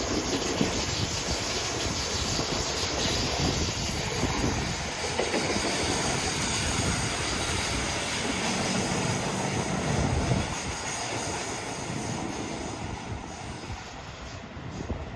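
Seibu Haijima Line electric train passing over a level crossing, its wheels clattering over the rails, then dying away over the last few seconds as it moves off.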